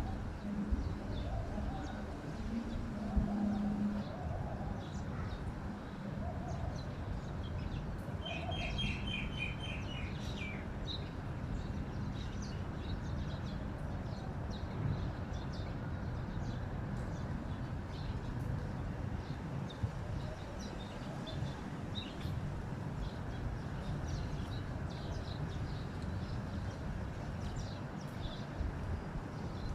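Songbirds chirping over a steady background rush, with short high chirps scattered throughout and a rapid run of repeated chirps about nine seconds in. Low calls sound in the first few seconds.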